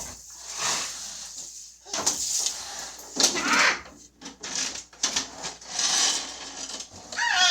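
Irregular scraping and rustling of household items being handled and moved, in short noisy bursts.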